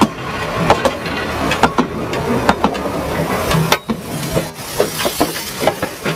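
Steel wheels of steam-train carriages rolling directly over the rails above, a loud continuous rumble with many sharp, irregular clicks and knocks.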